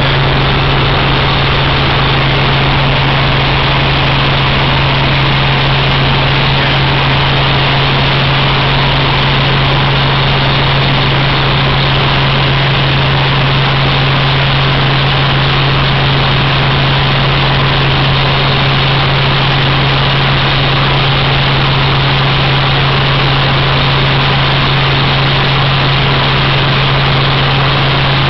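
Helicopter engine and rotor noise heard inside the cabin in flight: a loud, steady drone with a strong low hum under a rushing noise.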